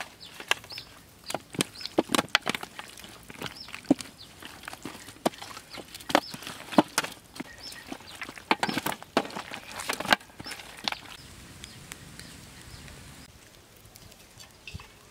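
Hands handling raw fish bone pieces coated in chili sauce on a metal tray: irregular sharp slaps and clicks, several a second, stopping about eleven seconds in.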